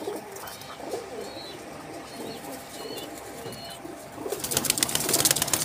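A cage of Giribaz pigeons cooing softly, with a few faint chirps. A burst of wing flapping starts about four seconds in.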